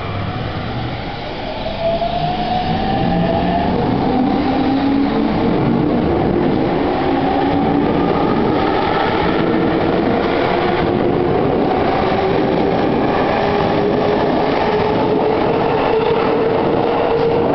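JR East E231-500 series electric train pulling out and accelerating, its VVVF inverter and traction motors whining in slowly rising tones over the rumble of wheels on rail. The sound gets louder about two seconds in as the cars pick up speed past.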